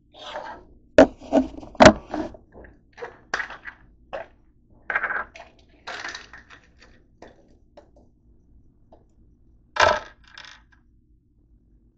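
Handling knocks and clicks as the camera is set down on a wooden table, then, about ten seconds in, a sharp clatter and brief rattle of pills tipped out onto the tabletop.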